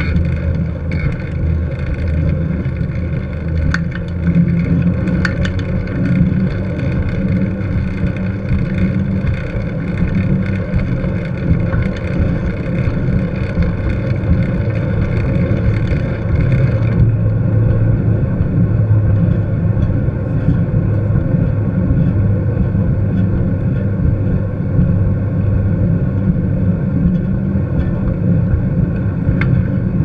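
Wind buffeting the microphone of a GoPro on a moving mountain bike, a steady loud rumble with tyre noise from the paved path underneath. The higher hiss drops away about halfway through.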